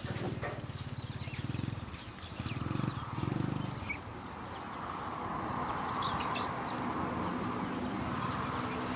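Ducklings peeping in short high chirps, over a low buzzy growl that swells three times in the first four seconds, then a steady hiss.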